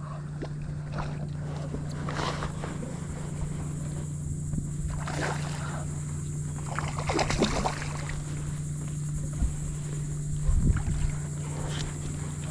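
Water sloshing and splashing at the side of a kayak while a hooked tarpon is played, with a few louder splashes a few seconds apart over a steady low hum.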